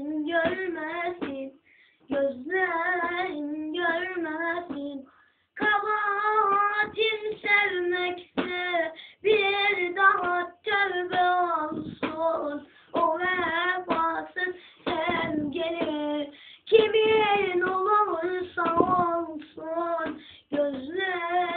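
A boy singing solo and unaccompanied, in phrases with short breaks for breath between them, his held notes wavering.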